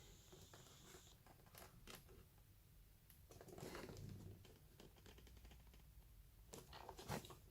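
Faint handling noises of a product box and its packaging: scattered light clicks and taps, a rustle about halfway through, and a few sharper knocks near the end.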